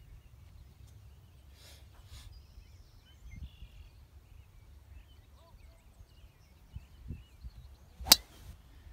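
Golf club striking a teed golf ball on a tee shot: one sharp, loud crack about eight seconds in. Before it, wind rumble on the microphone and faint bird chirps.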